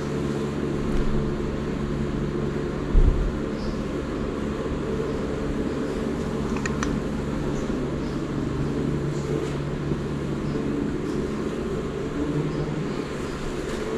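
A steady low mechanical hum, with a short low thump about three seconds in and a few faint clicks about seven seconds in.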